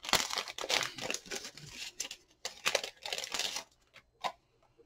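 Packaging crinkling and rustling in rapid handling bursts as a pack of small metal charms is handled, then a single small click near the end.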